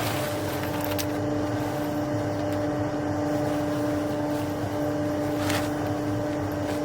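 A steady mechanical drone, an engine or motor running at a constant pitch.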